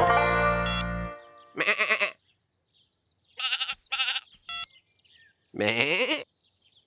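A short music cue dies away about a second in, followed by four or five separate bleats from cartoon sheep, with short gaps between them.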